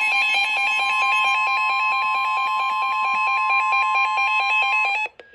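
Emergency Alert System attention signal: a loud, steady, harsh electronic alarm tone that cuts off suddenly about five seconds in, marking the start of a severe thunderstorm warning broadcast.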